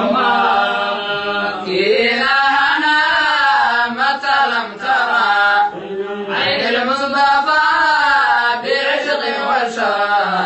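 Male vocal chanting of a Somali qasiido, an Islamic devotional poem, in long sung phrases with wavering, drawn-out notes and short breaks between lines.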